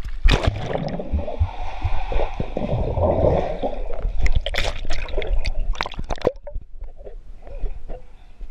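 Pool water sloshing and gurgling around a GoPro as it goes under the surface, then muffled underwater bubbling with scattered clicks and knocks, quieter near the end.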